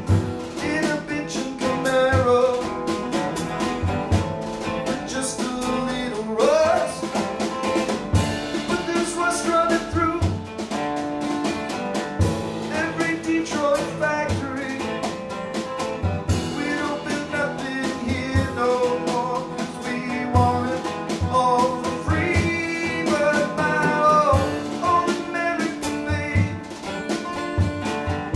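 A man singing live, accompanying himself on a strummed steel-string acoustic guitar in a country-blues style song.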